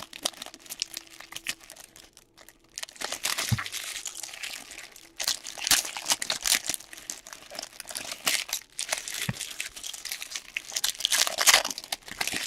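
Foil trading-card pack wrappers being torn open and handled, cards shuffled, in irregular rustles with a brief lull about two seconds in.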